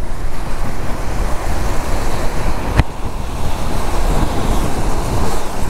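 Steady wind rushing over the rider's microphone on an electric scooter at speed in the rain, with one sharp click about three seconds in.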